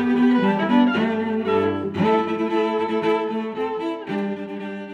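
Background music of bowed strings holding long notes, gradually fading out.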